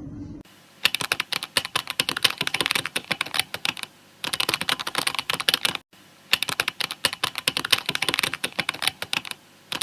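Rapid typing on a keyboard: dense runs of keystrokes, pausing briefly about four seconds in and again near the end.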